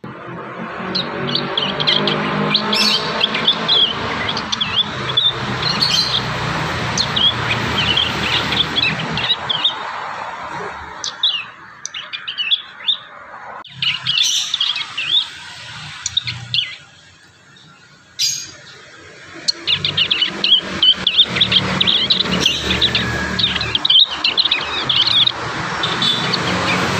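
Young prinias (prenjak) twittering a rambling practice song of quick, high chirps, pausing briefly about two-thirds of the way through before starting again. A low drone runs underneath for much of the time.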